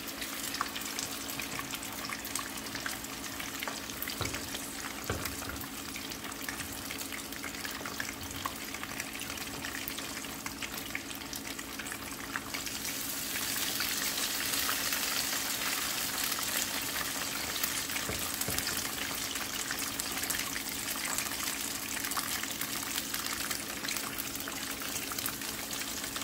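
Pieces of floured anchova (bluefish) deep-frying in a pan of hot oil: a continuous sizzle with many small crackles that grows louder about halfway through. A steady low hum runs underneath.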